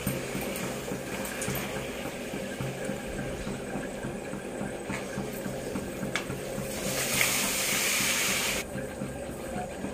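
Pappadams frying in hot oil in an aluminium kadai: a steady sizzling hiss that swells louder for a second or so near the end and then drops off suddenly. A few light clicks of the bamboo skewer against the pan.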